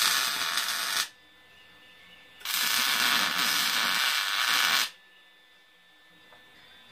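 Two bursts of welding arc crackle on steel bar, one about a second long at the start and a longer one of about two and a half seconds in the middle, each starting and stopping abruptly.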